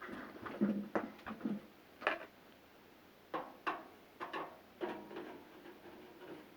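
Irregular clicks and knocks of a microwave oven's metal casing and parts being handled as it is taken apart.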